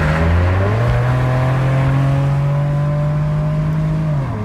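Car engine accelerating, heard from inside the cabin over road noise. Its note steps up about half a second in, creeps slowly higher, then drops near the end.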